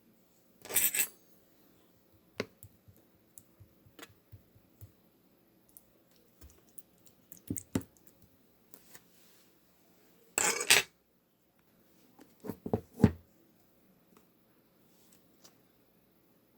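Slime being squished and pressed by hand, giving scattered sticky clicks and small pops. Two louder crackly squelches come about a second in and about ten seconds in, and a quick run of pops follows a couple of seconds after the second one.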